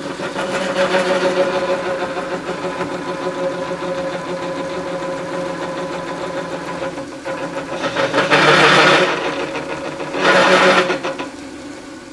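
Small metal lathe running steadily, with several held machine tones, as a cutting tool cuts a shallow marking groove into a spinning steel axle bar. Two louder, harsher stretches of cutting noise come about eight and ten seconds in.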